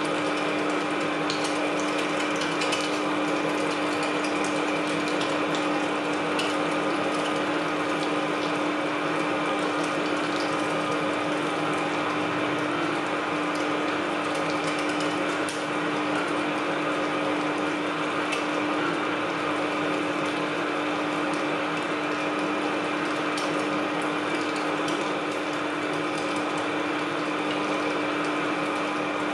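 Electric meat grinder running steadily, its motor humming at one even pitch while the auger forces meat through the grinding plate, with faint scattered crackles.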